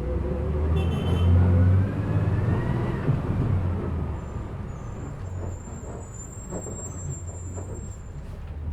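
Bus engine running under way, heard from inside the bus: a loud low drone with a whine rising over the first few seconds, after which the engine noise drops off. A thin high squeal sounds briefly near the end.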